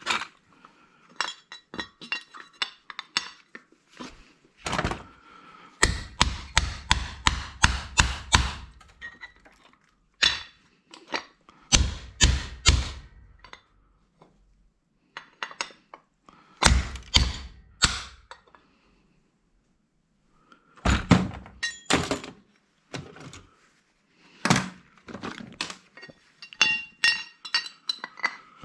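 Hammer striking a flat screwdriver or punch driven into a hard drive's metal casing to pry a part loose. The blows come in several quick runs of sharp strikes, with lighter metallic clinks and taps between them.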